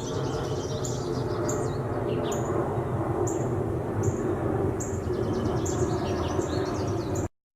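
A steady low hum while small birds chirp over it again and again; the sound cuts off abruptly just before the end.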